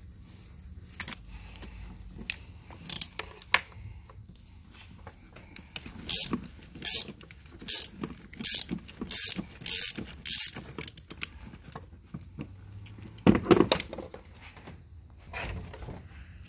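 Hand socket ratchet clicking in a run of repeated strokes, working a 32mm socket on a swivel to undo the oil filter housing cap, with a louder clunk about 13 seconds in.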